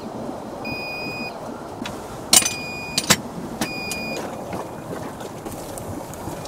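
Electronic warning beeper in an overturned off-road rally car sounding three half-second beeps about a second apart, then stopping. A couple of sharp knocks stand out around the middle, over a steady noisy background.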